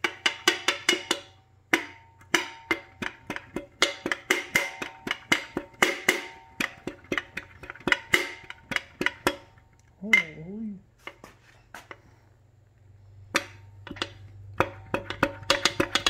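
Rapid hammer blows, metal on metal with a ringing tone, driving a stuck piston and rod out of its bore in a Chevrolet 305 small-block V8. The blows come in quick runs of several a second, stop for a few seconds after about nine seconds, then start again.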